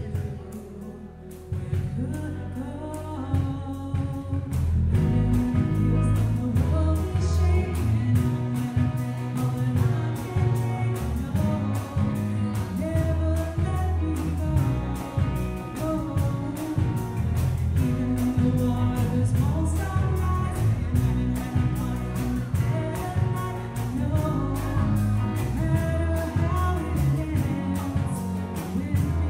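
Live worship band playing a contemporary Christian song: a woman singing lead over electric guitar and bass guitar with a steady beat. The accompaniment is thin for the first couple of seconds and fills out from about five seconds in.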